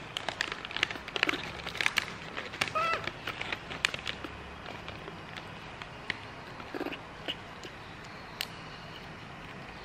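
A baby monkey gives one short, high-pitched squeak about three seconds in. Around it, a plastic snack bag crinkles and small clicks come thick over the first few seconds, thinning to scattered clicks after that.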